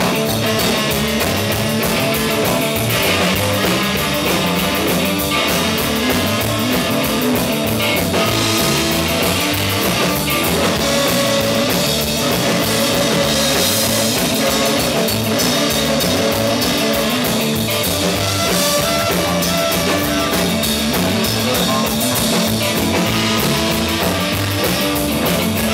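Rock band playing live: electric guitar, bass and drum kit with a steady driving beat, no singing.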